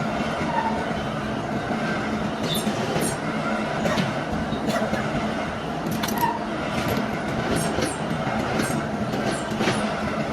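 Steady machine noise with a constant low hum, dotted with irregular sharp metallic clicks and taps.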